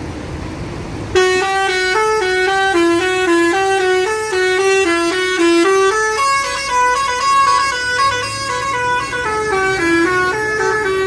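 Bus telolet horn playing a quick melody of stepped musical notes, starting about a second in after some vehicle noise. The tune changes about six seconds in.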